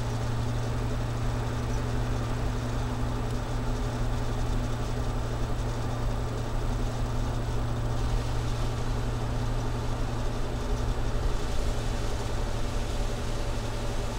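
Ford 351 Windsor V8 exhaust through a Flowmaster Delta Flow 50 series muffler, heard from inside the van as a steady low drone. A little more hiss joins it from about eight seconds in.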